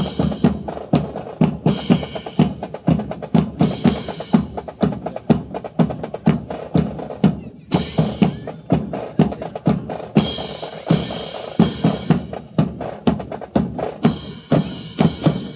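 Marching drum cadence: snare and bass drums keep a steady, driving rhythm, with louder crashing accents every couple of seconds.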